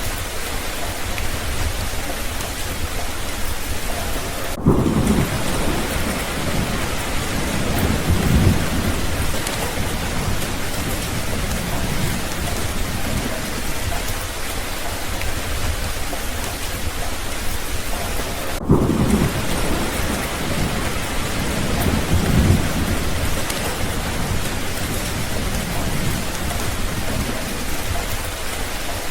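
Steady heavy rain with thunder: a roll of thunder breaks in suddenly about five seconds in and rumbles for several seconds, and a second roll comes in the same way near the twenty-second mark.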